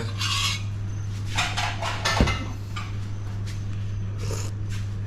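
Cooking-pot handling sounds as the fish stock is tasted: scrapes and rustles, a single knock a little over two seconds in, and a steady low hum underneath.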